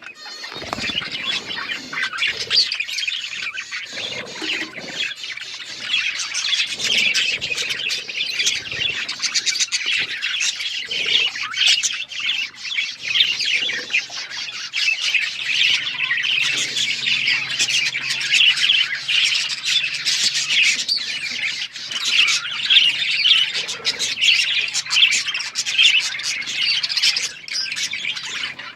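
Several budgerigars chirping and chattering without pause, their many calls overlapping.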